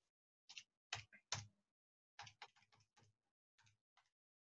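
Faint taps of a finger pressing the keys of a Casio scientific calculator: about a dozen short clicks in uneven groups as a multiplication and division are keyed in.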